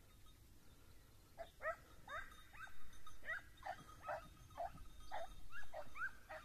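Hunting dog baying on a hare's trail: a steady run of short, yelping barks, two or three a second, starting about a second and a half in.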